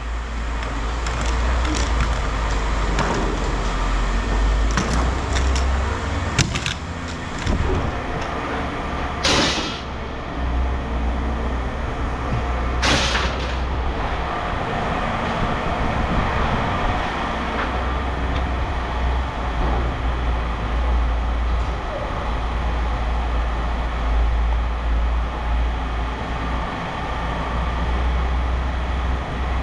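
Steady low machine rumble, like an idling engine, with scattered clanks and two short, loud noises about nine and thirteen seconds in.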